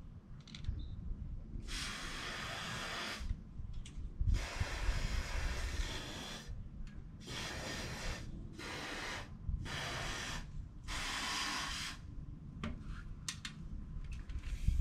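Aerosol insecticide spray can hissing in six short bursts of about one to two seconds each, sprayed at wasps.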